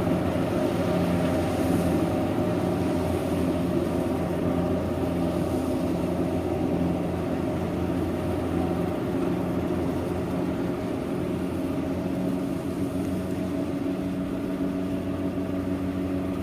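Kubota DC-70 rice combine harvester's diesel engine running steadily, with a deep hum that eases slightly a little past halfway.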